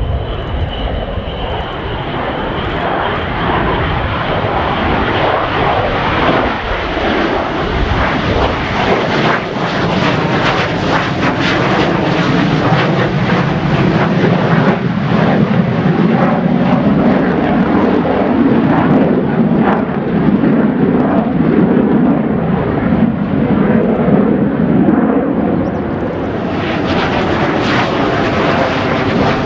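Twin General Electric J79 turbojets of a McDonnell Douglas RF-4 Phantom II flying past on a low pass with landing gear down: a loud, continuous jet roar full of crackle, dipping briefly and coming back brighter near the end.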